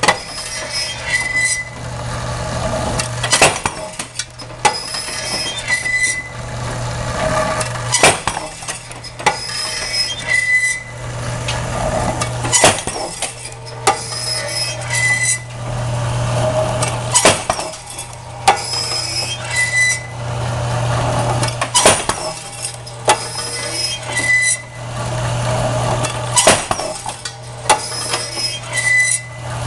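Impact fatigue cycle drop-test machine running. A steady low hum from its drive sits under metallic clanks, clinks and one heavy knock each cycle. The cycle repeats about every four to five seconds.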